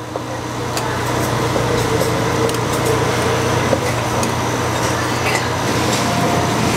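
A steady loud rushing noise with a low hum, and a few light knocks of a steel cleaver meeting a wooden chopping block as it slices cooked pork.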